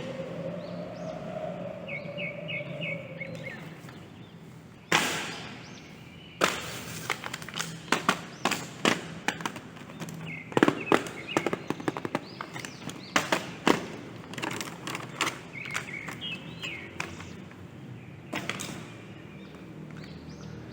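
Plastic toy parts being handled during an unboxing: a short burst of noise about five seconds in, then a run of irregular sharp clicks and taps.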